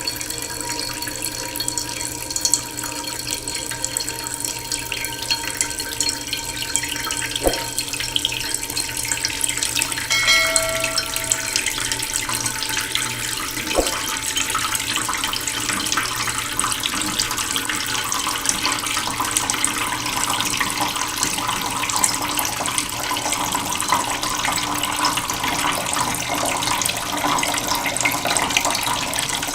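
Waterfall: a steady rush of falling, splashing water, with a short pitched tone about ten seconds in.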